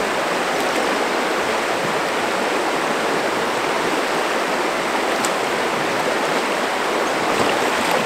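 Shallow, fast-flowing river rushing over stones: a steady, unbroken rush of water.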